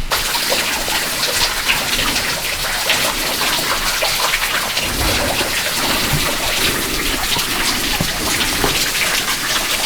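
Steady hiss of falling water, with faint scattered ticks through it.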